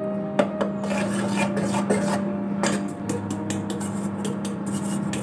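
A metal utensil scraping and clinking against a stainless-steel mixing bowl as thick cake batter is stirred by hand, in short irregular strokes. A steady low hum runs underneath and stops about three seconds in.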